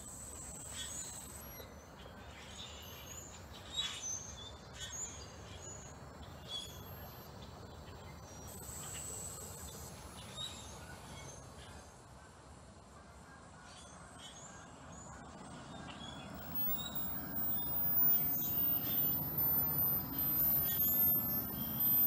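A flock of blackbirds calling from the treetops in many short, scattered chirps. In the last third a low rumble grows louder underneath.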